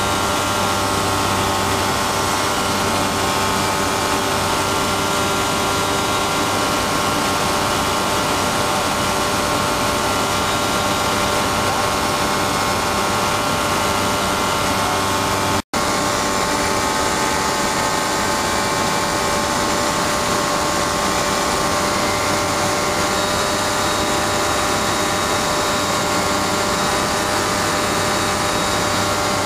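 Kitfox amphibious floatplane's engine and propeller droning steadily in cruise flight, heard from inside the cabin. The sound cuts out for an instant about halfway through.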